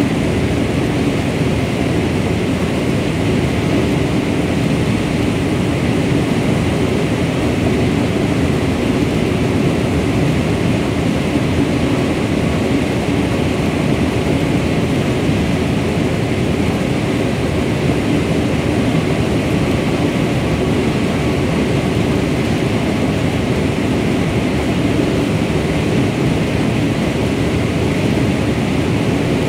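Corn harvester running steadily as its header cuts and feeds in rows of dry corn stalks: a constant, loud machine drone that does not change.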